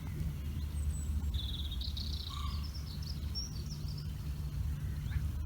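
Small birds chirping and twittering for a few seconds over a steady low outdoor rumble.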